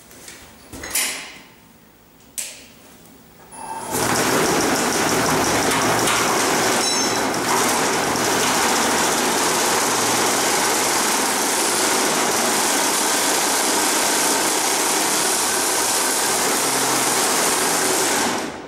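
Snowmobile track on a DIY electric snowbike driven by its ME1115 electric motor in a first test run: after two short clicks, the track starts about four seconds in and runs with a loud, steady mechanical noise for about fourteen seconds, then stops suddenly near the end.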